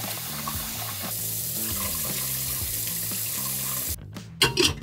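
Tap water running into a stainless steel bowl as rice is rinsed by hand, cutting off suddenly about four seconds in. A few sharp knocks follow near the end.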